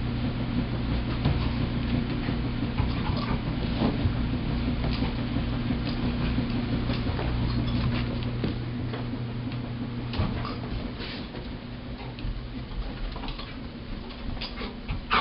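A dog playing with a whole watermelon on carpet: scattered light taps and patter as it noses and pushes the melon about, over a steady low hum, part of which fades out about eleven seconds in.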